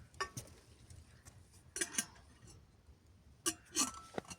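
A few short, sharp clinks and knocks of hard objects, mostly coming in pairs.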